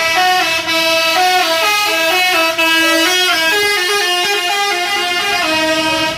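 Bus telolet horn, a set of musical air-horn trumpets, playing a melody of held notes that step up and down in pitch every fraction of a second, then cutting off suddenly at the end.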